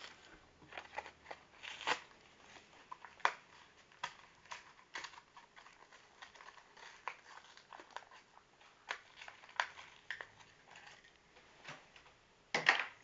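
Hot Wheels blister package being handled and pried open: scattered small plastic crinkles, clicks and cracks, with a louder burst of crinkling near the end.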